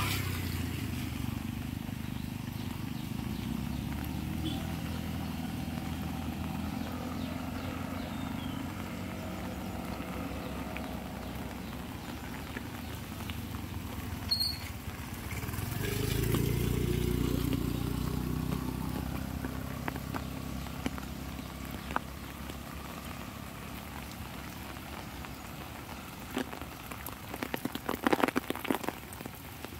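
Rain ambience with the low hum of a motor vehicle's engine that fades, swells again about halfway through as a vehicle passes, then dies away. Near the end come clusters of sharp taps of raindrops on an umbrella.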